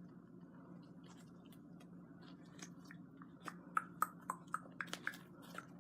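Slime with miniature foam beads being kneaded by hand, making short crackling clicks and pops that start about halfway through and come several a second. A faint steady hum lies underneath.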